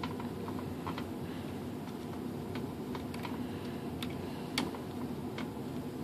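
Faint, irregular small clicks and ticks as a small screw is turned by hand into the motor mount inside a fiberglass glider fuselage nose, over a steady low hum.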